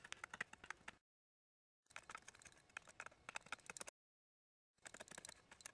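Silver Fox Bushcraft Knife cutting into a wooden spoon blank in quick short strokes: runs of sharp little clicks and scrapes as the blade takes off shavings. Three runs come about a second apart, with dead silence between them.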